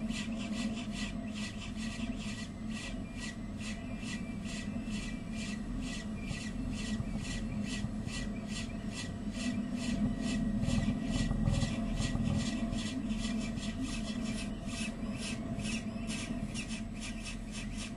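Steady low hum with a hiss on top that pulses evenly about three times a second, swelling slightly around the middle.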